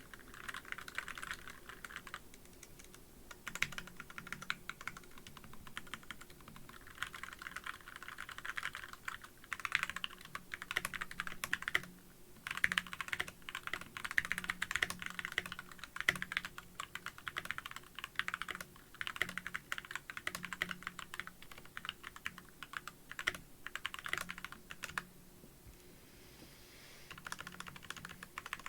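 Typing on a custom tenkeyless mechanical keyboard (Glorious GMMK barebone) fitted with Gateron Yellow linear switches and PBT doubleshot keycaps: fast runs of key clacks, with short pauses a couple of seconds in and about twelve seconds in, and a longer pause near the end.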